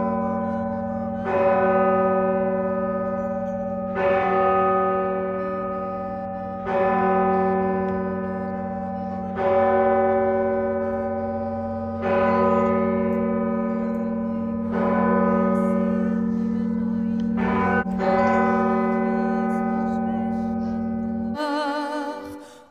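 Church tower bell tolling: a fresh stroke about every two and a half to three seconds, each one ringing on into the next over a steady low hum. It cuts off abruptly near the end.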